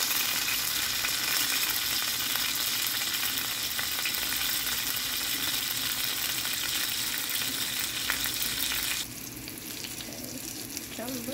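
Pork roast searing in olive oil in a skillet: a steady sizzle of hot oil. About nine seconds in it drops suddenly to a quieter sizzle.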